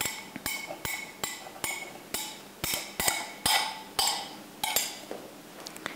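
A hand scraper knocking and scraping against the inside of a clear storage container as risen yeast dough is worked out of it: about a dozen sharp knocks and short scrapes, irregular, roughly two a second.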